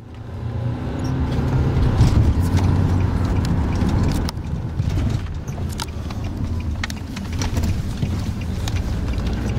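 A car running, heard from inside the cabin: a steady low engine and road rumble, with scattered light clicks and knocks.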